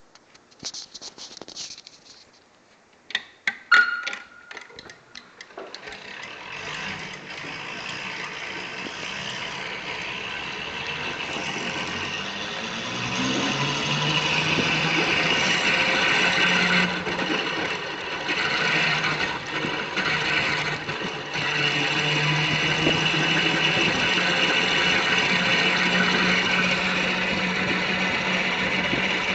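Cushman stand-up three-wheeler running and driving off, getting louder as it picks up speed about halfway through. A few clicks and a sharp knock come near the start, before it sets off.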